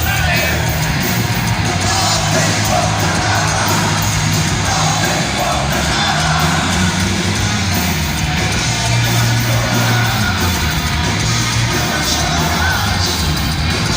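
Heavy metal band playing live at full volume, with electric guitars, bass and drums, and voices yelling and singing over the music.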